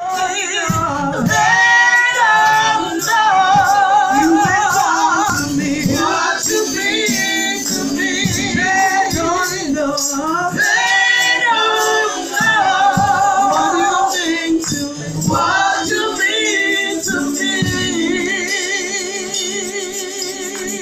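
Live worship singing: voices singing a praise song into microphones, amplified, with long held notes that waver with vibrato.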